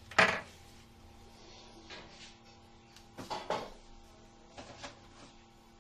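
Hand-tool and wire handling on a metal amplifier chassis: a sharp click just after the start, then a short cluster of clicks and rattles about three seconds in and a few lighter ones after it.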